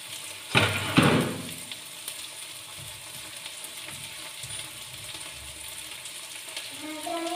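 Two loud knocks about half a second apart near the start, as kitchen things are handled, then a steady low hiss with faint clicks.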